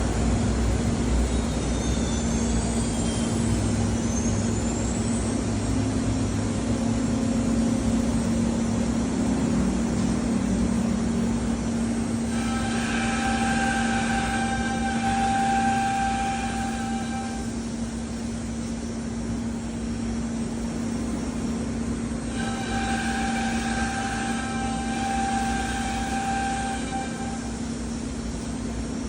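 Gold Star StarPro AG 510 CNC router running, a steady low hum throughout, with faint rising whines in the first few seconds and two spells of a steady higher whine, each about five seconds long, one about halfway through and one near the end.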